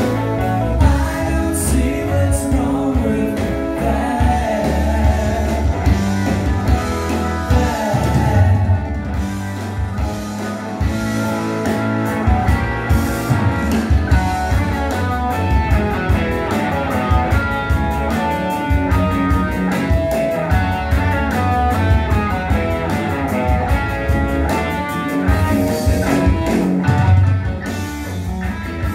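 Live rock band playing: electric guitars, bass guitar and drums, with singing.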